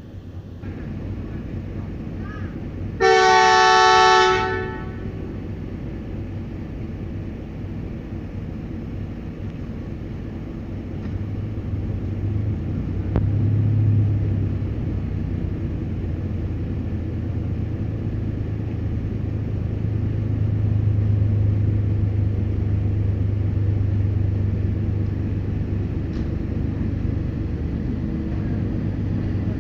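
A train horn gives one short blast of about a second and a half, two low notes sounding together. Then a diesel train's engine rumbles steadily and grows louder as the train comes on.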